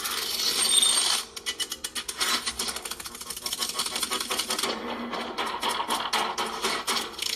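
Sound-effect clip played back through a moto X40 smartphone's loudspeakers: a dense rasping noise for about the first second, then a rapid run of sharp clicks and rattles, like small mechanical parts or objects clattering.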